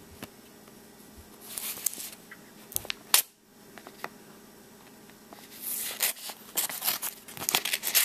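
A pocket knife blade slitting open a paper envelope: paper rustling and a few sharp clicks, then a quick run of tearing scrapes in the second half as the blade cuts along the fold.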